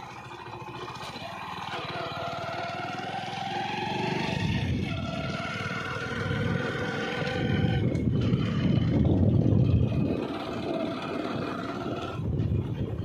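A vehicle's engine running while driving, its tone drifting slowly in pitch with speed, with wind buffeting the microphone in gusts that are heaviest about eight to ten seconds in.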